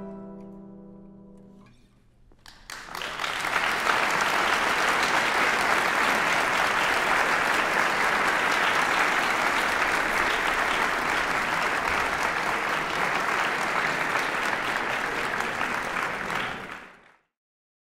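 The closing chord of two classical guitars rings out and fades over the first two seconds, then a concert audience applauds steadily for about fourteen seconds. The applause cuts off suddenly near the end.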